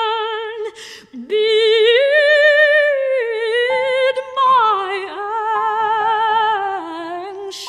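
Soprano singing sustained, wide-vibrato notes over piano accompaniment, with a brief pause about a second in; piano notes sound under the voice from about halfway through.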